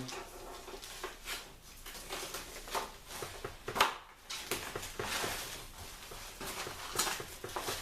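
Packing tape being torn open on a monitor's cardboard box, with the packaging handled: a string of irregular short rasps and rustles, the sharpest about four seconds in.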